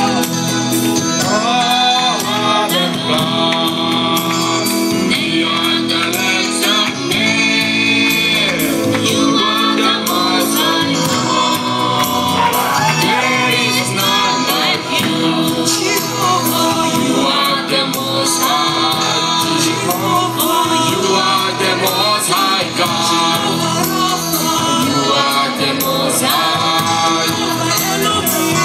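Gospel music: voices singing over a band with a steady beat.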